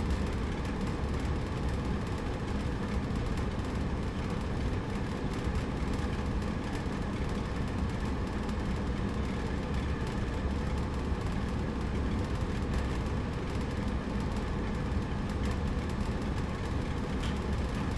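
A steady low mechanical rumble with a constant faint hum, unchanging throughout.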